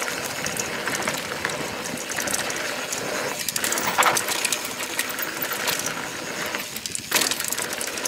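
Santa Cruz 5010 mountain bike rolling fast down a dirt trail: the tyres crunch over dirt and roots while the chain and frame rattle and click. Sharper knocks from bumps come about four and seven seconds in.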